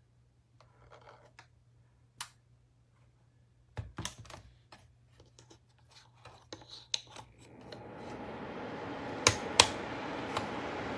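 Light scattered clicks and knocks, then about eight seconds in a portable ceramic space heater's fan starts with a steady rush of air, followed by two sharp clicks.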